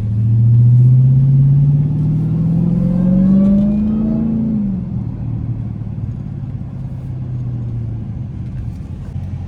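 Dodge Hellcat V8 engine revving, its pitch climbing steadily for about four and a half seconds. It then drops back quickly and settles into a steady idle.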